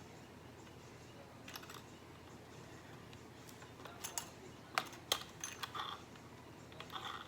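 Scattered light clicks and taps of small plastic parts being handled on a handheld sewing machine while it is being threaded, with a quick cluster of clicks between about four and six seconds in.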